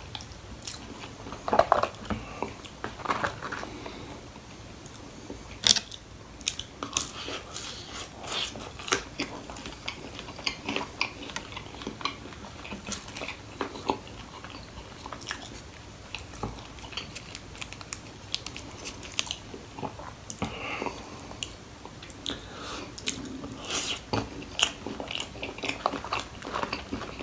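Close-up chewing and biting of crispy fried food, with irregular sharp crunches, the loudest about one and a half and six seconds in.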